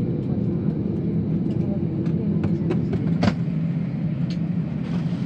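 Steady low drone inside the cabin of an Airbus A320 standing at the gate after landing, with a few sharp clicks scattered through it, the loudest about three seconds in.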